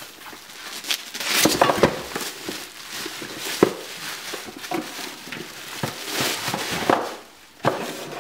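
Bubble wrap crinkling and cardboard box flaps rustling as a wrapped pot is handled and lifted out of its box, with scattered sharp clicks and crackles. The rustling comes in two louder spells, about a second and a half in and again near the end.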